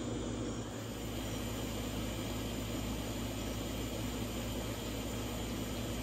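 Pieces of bowfin frying in a pot of grease on a propane fish cooker: a steady sizzling hiss with a constant low hum underneath.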